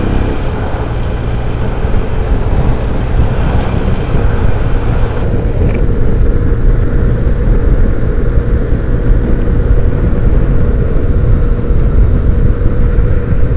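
BMW R1200GS boxer-twin motorcycle being ridden, with its engine under heavy wind rumble on a helmet-mounted lavalier mic; the hiss eases about five seconds in. The bike has a hesitation when the throttle is opened, which the rider suspects may come from a weak fuel pump.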